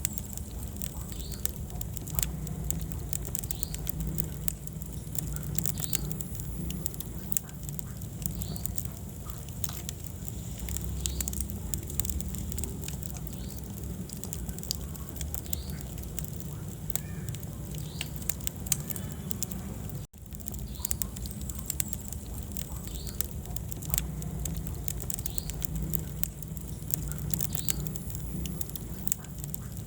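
Wood fire in a fireplace crackling and popping, with many sharp snaps over a steady low rumble of the flames. The sound cuts out for an instant about twenty seconds in.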